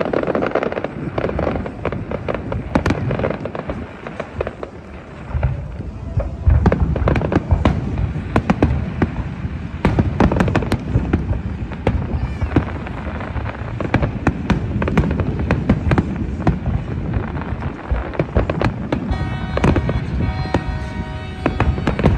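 Fireworks display: aerial shells bursting one after another with sharp bangs and crackle. There is a brief lull about four seconds in, then a denser run of bursts.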